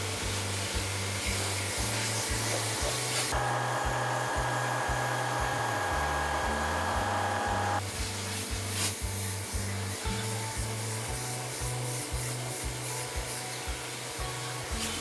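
Background music with a steady beat. From about three seconds in to about eight seconds, a machine runs over it with a steady whine and a hiss, then cuts off.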